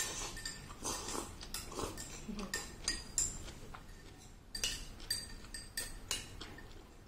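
Metal chopsticks clinking and scraping against a ceramic rice bowl as food is scooped up, a string of irregular light clinks that stop about six seconds in.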